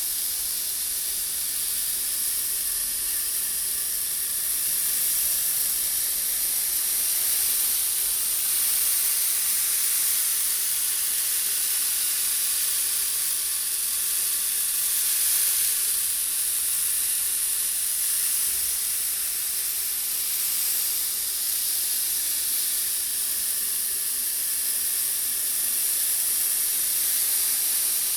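Many small steel balls rolling continuously around a tilted brass bowl, a steady dense hiss like rain that swells and eases gently.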